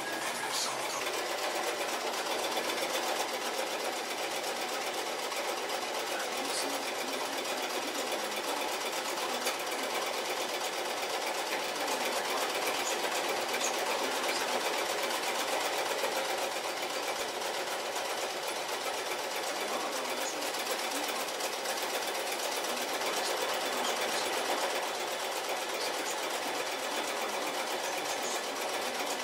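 Electric sewing machine running steadily without a break.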